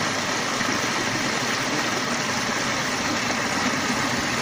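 Water running over a rock ledge and splashing into a pool below, a steady rushing without a break.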